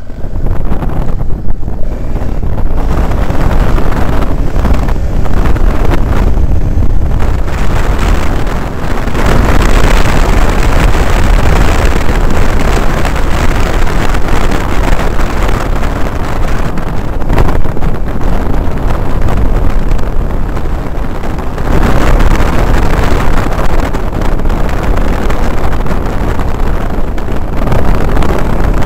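Wind rushing over a helmet-camera microphone on a motorcycle at speed, with the bike's engine running underneath. The rush swells and eases a few times.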